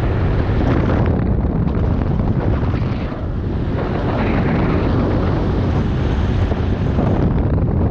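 Heavy wind buffeting on the microphone of a camera riding on a small motor scooter at road speed, over the steady running of the scooter's engine.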